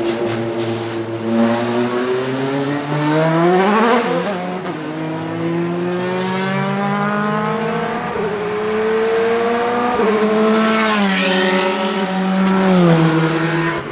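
Sport-prototype race car engine accelerating hard through the gears. The pitch climbs, then drops sharply at each upshift, about four times.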